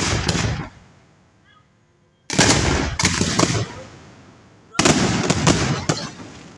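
Aerial fireworks shells going off in three loud volleys: one at the start, one about two seconds in, and one near five seconds. Each is a sharp bang followed by a quick rattle of smaller reports that dies away over a second or so.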